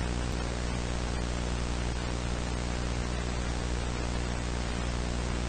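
Steady broadcast static: an even hiss with a low electrical hum beneath it, unchanging throughout.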